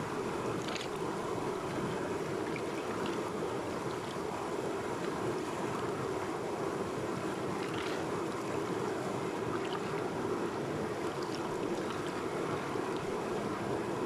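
Mountain river rapids: white water rushing and splashing over rocks, heard close up as a steady rush, with a few brief higher splashes.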